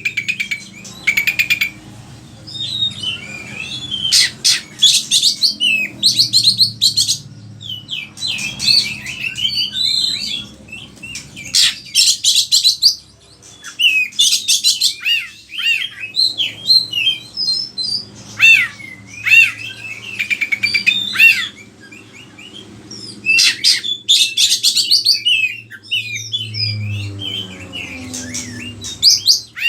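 Oriental magpie-robin (kacer) in full song, delivering loud bursts of rapid, varied whistles, chirps and trills with short pauses between phrases. It is running through its repertoire of learned song phrases.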